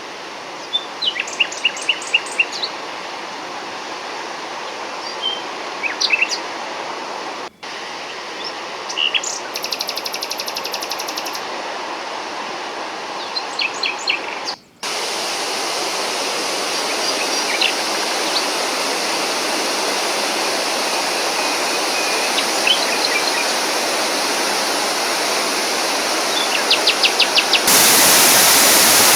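Steady rush of a waterfall, growing louder after a brief cut about halfway and again near the end. Small birds chirp over it in short, quick series of notes, several times.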